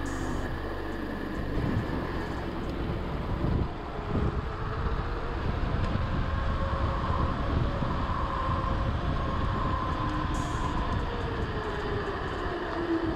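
Trek Powerfly 5 electric mountain bike rolling fast down an asphalt road: its knobby tyres hum in a pitch that slowly rises and falls with speed, over a steady rumble of wind on the microphone.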